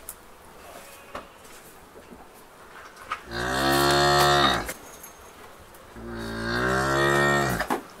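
Brahman-type cattle in a pen: two long moos, each lasting about one and a half seconds, the second starting a little over a second after the first ends.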